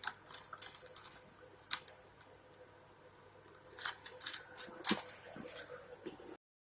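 Scattered small clicks and scrapes of a tool worked by hand on a guitar neck during a truss rod adjustment. It cuts abruptly to dead silence near the end.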